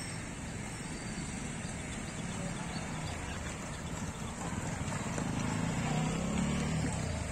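Motorcycle and small van engines pulling away at low speed, getting louder about five seconds in as they pass close.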